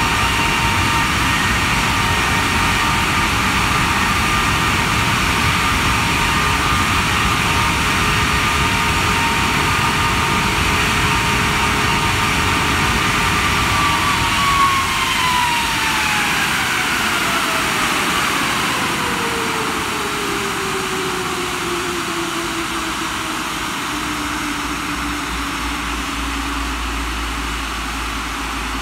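Rolls-Royce Trent 895 turbofan on a Boeing 777 running on the ground with a loud rush and a steady high whine. About halfway through, the whine falls smoothly and steadily in pitch and the noise eases a little as the engine spools down.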